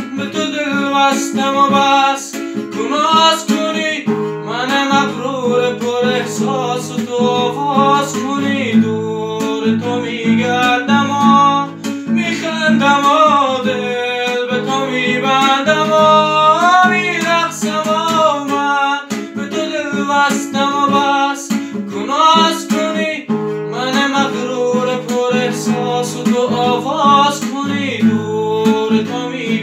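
A man singing a song to his own accompaniment, strumming chords on a nylon-string classical guitar.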